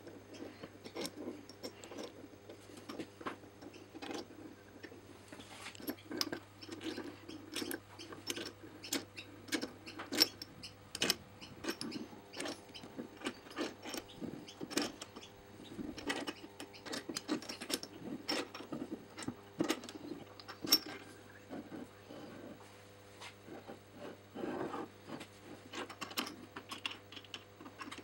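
Hands fitting and turning the steel lock bolt and sliding T-handle in a cast-iron swivel bench vise base: irregular light metal clicks, taps and scrapes, steel on cast iron.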